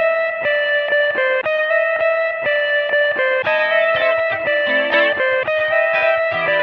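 Instrumental music with a plucked-string melody, its notes changing in an even pulse about twice a second.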